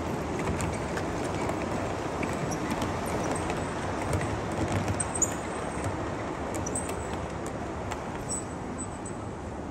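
Gauge 1 model freight wagons rolling past on the layout's track: a steady rumble with light clicks, a few sharper ones about halfway through, slowly growing quieter toward the end.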